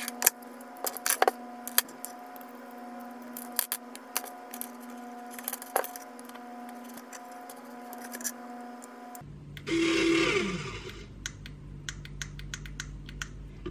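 Small plastic plugs and wires clicking and rattling as a cheap winch receiver module is wired up by hand. About ten seconds in, a small RC winch's electric motor runs for about a second, falling in pitch as it stops.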